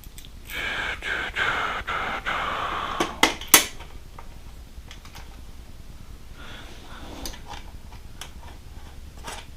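Hand handling of small metal motorcycle hardware: a few seconds of rubbing and scraping, then three sharp metallic clicks as stainless washers and a license plate bolt are fitted onto the plate bracket, followed by quieter fiddling.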